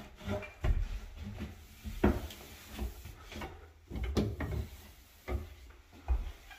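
Irregular light knocks and thumps against wood, about nine of them, with rubbing in between: the sound of hands working over cabinetry during cleaning.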